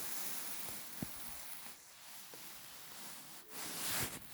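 Toy cars being pushed and handled: a soft, steady rubbing and rustling noise, with a small click about a second in and a louder scrape near the end.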